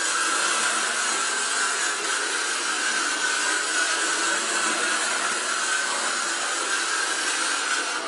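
Model train locomotive running round a layout on electrically powered track: the electric motor gives a steady whine over the rumble of the wheels on the rails.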